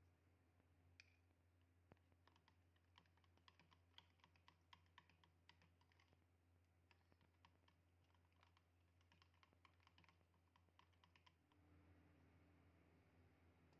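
Faint, rapid clicking of a metal spoon against a plastic tub as yogurt is stirred, several clicks a second, stopping near the end, over a low steady hum.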